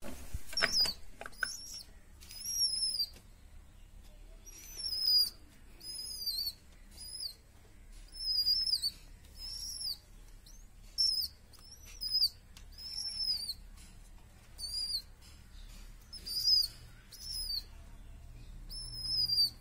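Baby pigeon (squab) giving high, thin begging squeaks, one about every second, each a short call that falls in pitch at its end. A few sharp clicks come in the first second or so.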